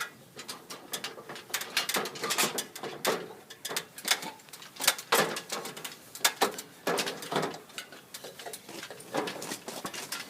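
Irregular metallic clanks, knocks and rattles of scaffold parts being handled and taken apart.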